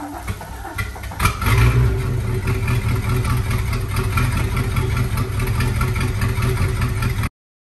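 The Maxum 2300 SC's inboard boat engine on a cold start. It catches about a second in and then runs with a loud, steady low rumble until the sound cuts off suddenly near the end.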